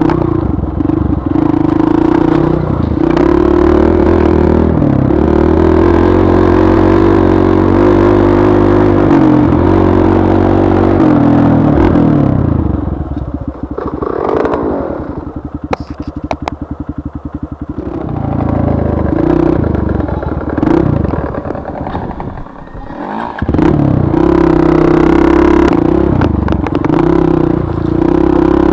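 Trail motorcycle engine running steadily under throttle. A little under halfway through it eases off to a low, fast chugging for several seconds, then picks up unevenly and pulls steadily again near the end.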